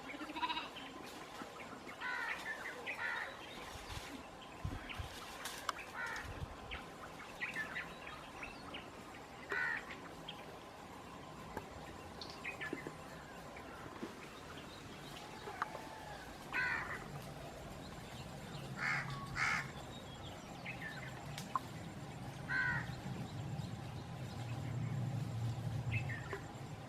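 Crows cawing now and then among other bird calls, over a steady faint insect drone. A low rumble builds near the end.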